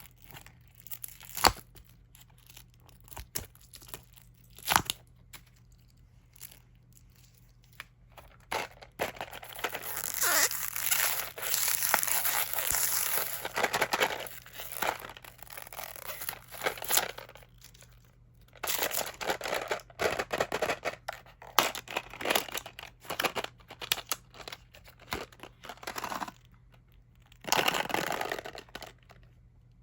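Plastic candy wrappers being torn open and crinkled by hand. A few sharp clicks come first, then a long stretch of dense rustling and tearing, then on-and-off crinkling bursts.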